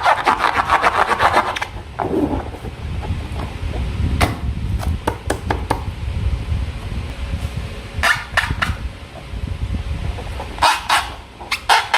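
Slime being squished and pressed by hand: rapid sticky clicks and crackles, dense for the first second or so, then scattered pops with short flurries of clicks.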